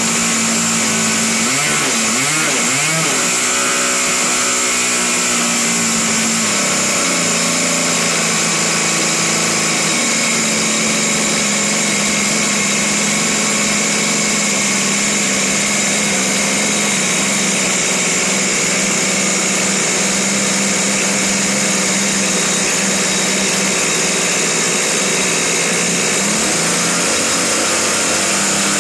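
Evolution 20GX 20cc two-stroke gas engine on an RC model airplane running steadily during its break-in run, the propeller spinning. Its pitch wavers briefly about two seconds in, then shifts slightly a few times before settling.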